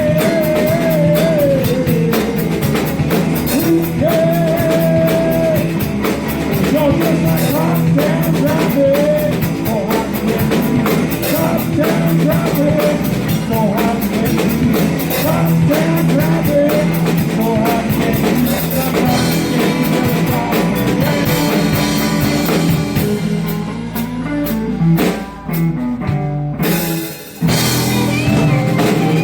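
Live blues-rock band playing: drum kit, bass and electric guitar, with a wavering, bending lead line and no lyrics. The sound drops out briefly twice near the end.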